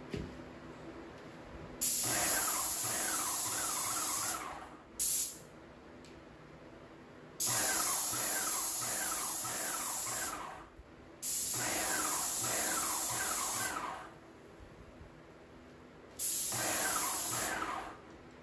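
Graco Magnum X5 airless paint sprayer spraying in trigger-pulled bursts of loud hiss: four lasting two to three seconds each, plus a brief one about five seconds in. A faint steady hum fills the gaps between bursts.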